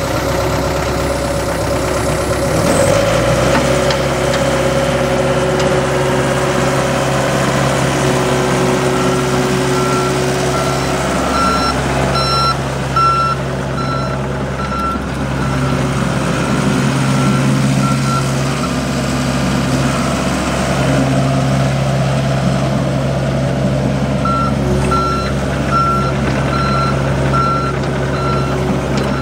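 John Deere 60G compact excavator's diesel engine running, its speed rising a few seconds in, with the machine's travel alarm beeping about twice a second in two spells while it moves.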